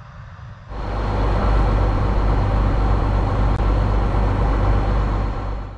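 Large engine of harvest machinery running steadily with a loud low rumble, starting suddenly just under a second in and cutting off abruptly at the end.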